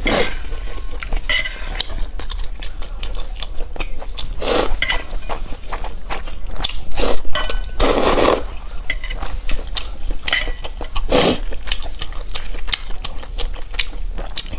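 Close-miked eating: a run of separate mouth and food noises, with utensils clinking against a dish several times.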